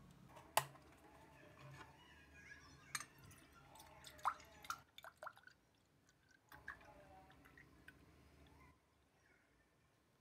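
Faint small handling sounds: scattered sharp clicks with a few light liquid drips among them, then quieter near the end.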